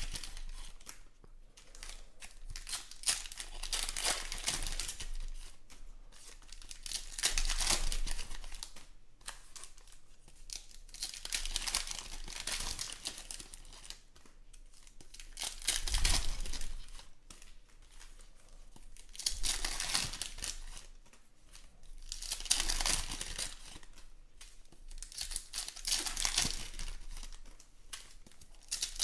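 Foil wrappers of 2020 Panini Contenders Football card packs being torn open and crinkled by hand. The crackling comes in bursts about every three to four seconds as one pack after another is opened.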